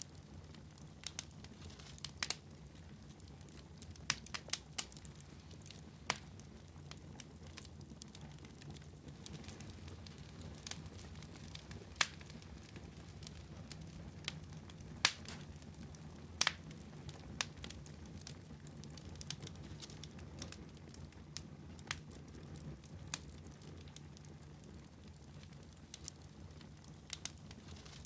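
Wood fire crackling in a fireplace: irregular sharp pops and snaps, a few louder ones around the middle, over a low steady background rumble.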